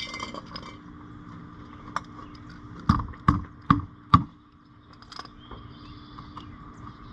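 Four sharp knocks in quick succession, about half a second apart, about three seconds in, over a steady background hum.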